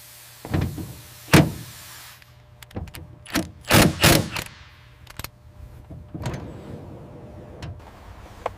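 A string of sharp mechanical clunks and clacks as a car seat frame is set down onto its metal floor rails and fastened. The loudest knock comes about a second and a half in, and a quick cluster of knocks follows about four seconds in, over a low steady hum.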